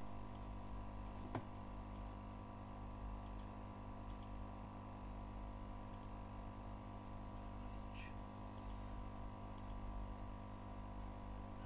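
Stepper motors on DRV8825 drivers running steadily with a whine of several fixed tones as the OnStep mount controller slews to a target. A single click about a second and a half in, with fainter ticks here and there.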